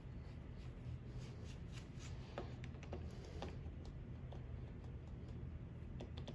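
Faint scattered clicks and scrapes of metal parts being handled and worked loose on a Kent milling machine's quill housing during quill-feed disassembly, over a low steady hum.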